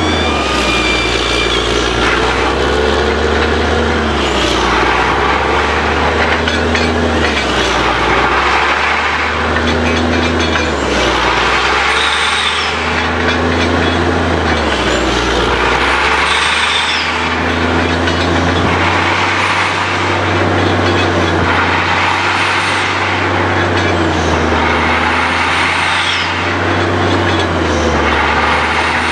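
Truck-mounted borewell drilling rig at work: its engine and air compressor run steadily, swelling and easing in a cycle roughly every two seconds, with a rush of hiss in each cycle.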